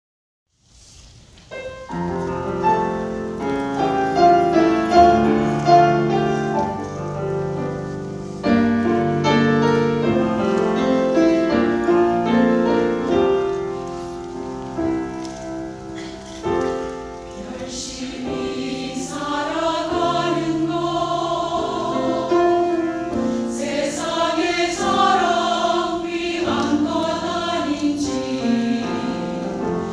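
Church choir singing a Korean worship anthem with keyboard accompaniment; the voices grow fuller, with vibrato, about halfway through.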